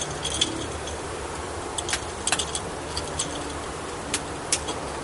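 Light, scattered clicks and knocks of wooden beehive frames being handled and lifted out of a honey super.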